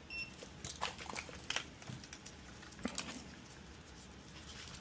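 Light clicks and taps of multimeter probes and a small circuit board being handled, with one short high beep just after the start.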